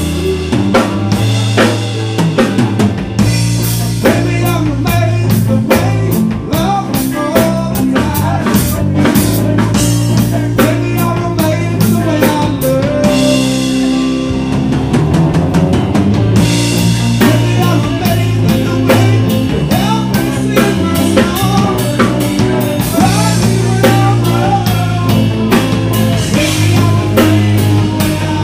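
Live rock band playing, with drum kit, electric bass, electric guitar and keyboard. A steady drum beat with snare and rimshot hits drives the music.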